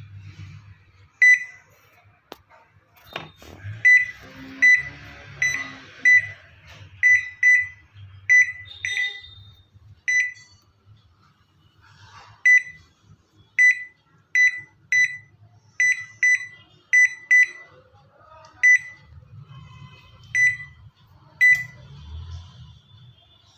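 LG microwave oven's control panel beeping on each key press, about twenty short identical beeps at an irregular pace as the newly fitted keypad is tested. A faint low hum runs underneath.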